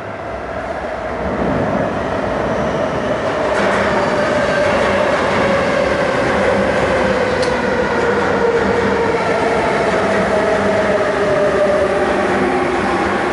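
MTR Tung Chung Line A-Train, an Adtranz-CAF electric multiple unit, coming out of the tunnel and running past into the platform. The rumble grows loud over the first couple of seconds and then holds steady, with a whine that falls slowly in pitch as the train slows to stop.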